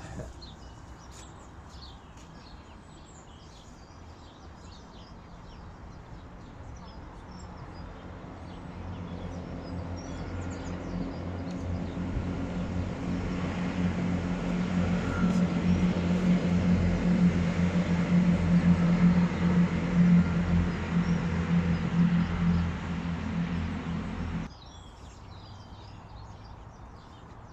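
A motor's steady, even-pitched hum grows louder over several seconds, then cuts off suddenly near the end.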